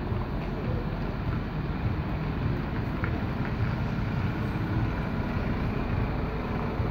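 Articulated lorry's diesel engine running as the lorry manoeuvres slowly: a steady low rumble with no sharp knocks or changes.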